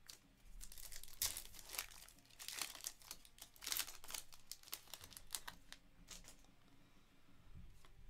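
Foil wrapper of a trading-card pack crinkling and tearing as it is ripped open by hand, in a run of sharp, irregular crackles for the first five seconds or so, then only faint handling of the cards.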